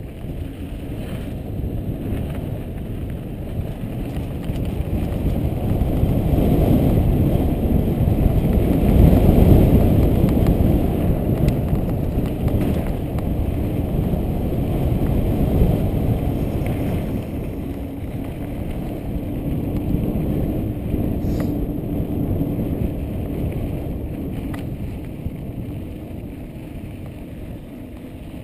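Wind buffeting the microphone of a helmet-mounted camera, mixed with the rumble of bicycle tyres rolling over a dirt fire road. The noise is steady and swells for several seconds in the middle.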